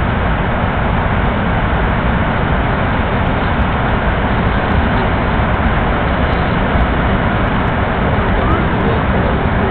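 Steady, loud noise of an airliner's engines and rushing air heard inside the passenger cabin during the final approach and landing.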